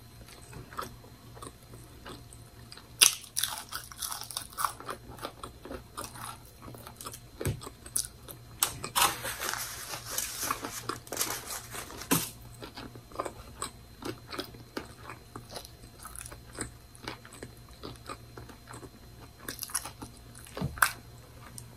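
Chewing and biting of a bacon and egg breakfast sandwich, with crunchy bites and short mouth clicks; the busiest crunching comes about nine to eleven seconds in.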